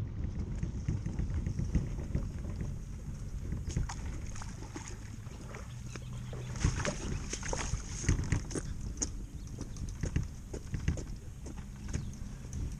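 Footsteps and irregular clicks and knocks on a concrete boat launch ramp while a fishing kayak is moved to the water, over a steady low rumble.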